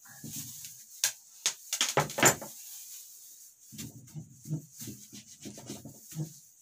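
A rag wet with thinned lacquer rubbed over a lacquered wooden chair back in a run of short wiping strokes in the second half. A few sharp clicks and crackles about one to two and a half seconds in.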